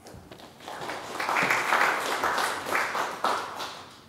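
Small audience applauding, swelling about a second in and dying away near the end.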